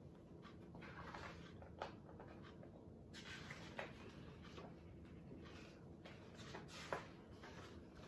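Faint rustling and flapping of the large paper pages of an oversized picture book as they are turned and handled, with three short soft taps.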